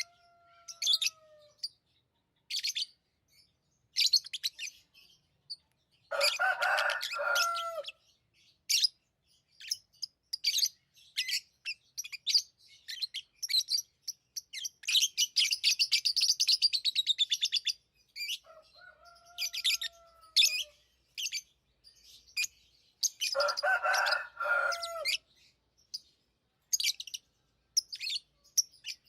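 Pet lovebirds chirping: a stream of short, high chirps, a fast chattering run in the middle, and twice a lower, fuller burst of calls, with a falling whistled note shortly before the second burst.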